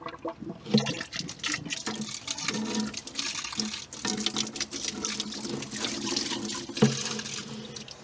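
Water from a hose on an outboard engine's flush port, running steadily and splashing out of the open zinc-cover ports on the head, with a few small clicks.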